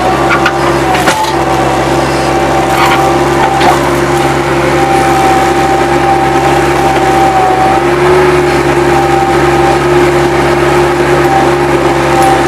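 Bobcat 763 skid-steer loader's diesel engine running steadily, with a high whine held over it, and a few sharp clanks and knocks in the first few seconds.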